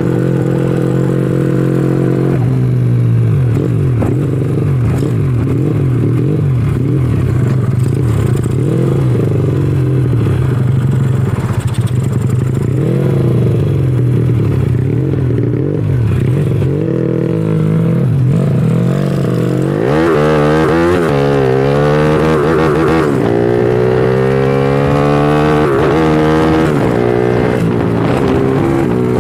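Honda Astrea Legenda 2's race-tuned single-cylinder four-stroke engine running under load. Its pitch is steady at first, then wavers, and about two-thirds in it climbs and drops repeatedly as the revs rise and fall. The carburettor is set with a 120 main jet and 42 pilot jet, which the owner finds still too rich at low revs.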